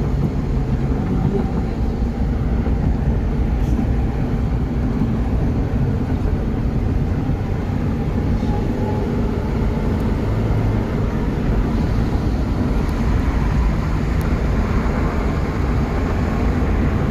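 Steady road noise of a car driving at speed on a concrete toll road, heard from inside the cabin: tyre rumble and engine noise, strongest at the low end.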